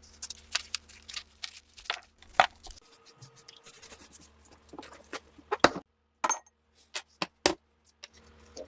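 A quick string of sharp metallic clicks, clinks and knocks with some scraping, as old rifle parts are handled and worked on by hand; the loudest knocks come about two and a half seconds in and around five and a half and seven and a half seconds in.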